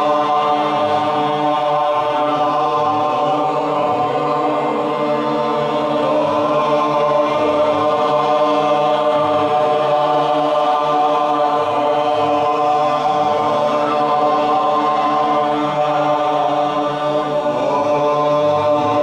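Devotional mantra chanting: a man's voice leads a sustained chant with other voices joining, over a steady harmonium drone.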